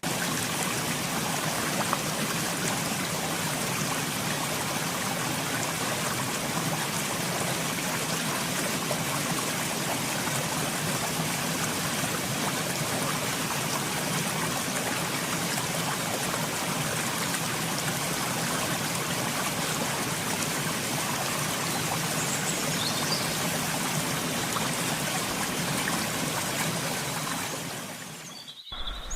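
Steady rushing of flowing water from a forest stream or waterfall, which fades out just before the end.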